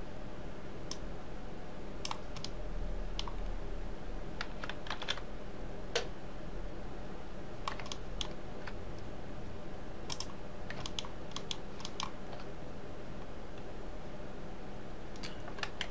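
Computer keyboard keys and mouse buttons clicking at irregular intervals, with clusters of quick clicks, while hotkey shortcuts are pressed in a 3D modelling program, over a faint steady low hum.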